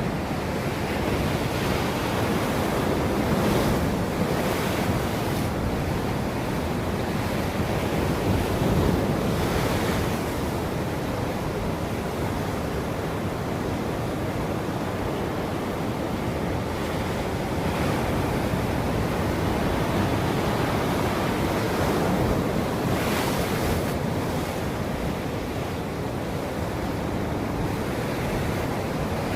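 Ocean surf: waves breaking and washing in a continuous rush that swells and eases, with brighter hissing washes a few times, and wind noise on the microphone.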